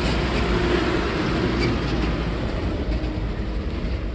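A school bus driving past close by, its engine running with a steady low rumble and road noise.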